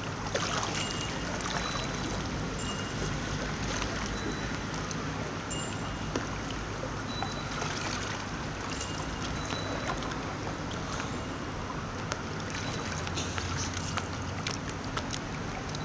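Water lapping and light paddle splashes around a kayak, over a steady low rumble.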